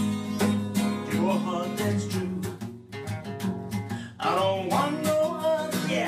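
Guitar being strummed, with singing over it in the second half.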